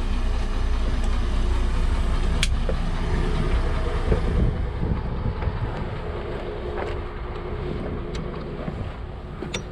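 Boat engine running under way, a steady low rumble, with wind on the microphone. A sharp knock sounds about two and a half seconds in, and the sound grows quieter a little after halfway.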